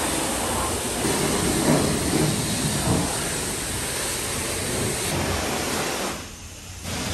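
High-pressure car wash wand spraying water onto a car body, a steady loud hiss that drops away about six seconds in.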